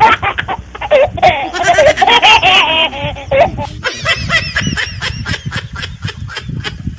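Loud laughter: a long run of rapid ha-ha pulses, with a voiced stretch swinging up and down in pitch in the first half.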